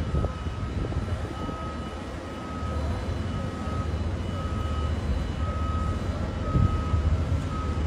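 Steady low vehicle rumble in floodwater, growing louder about a third of the way in, with a high electronic beep repeating about once a second.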